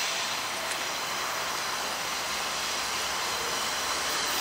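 Steady, even hiss of a train still far off down the track, approaching, with no horn sounding.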